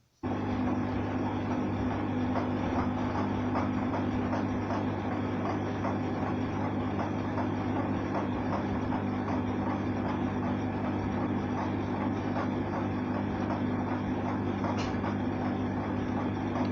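A small motor running with a steady hum, starting abruptly at the very beginning.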